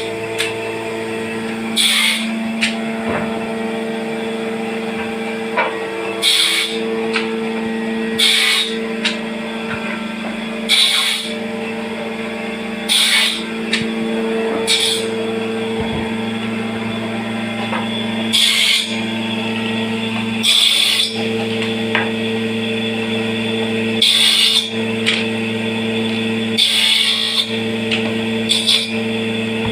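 An electric woodworking power tool running steadily, with about a dozen short cuts into wood at irregular intervals of roughly two seconds, each a brief hissing rasp.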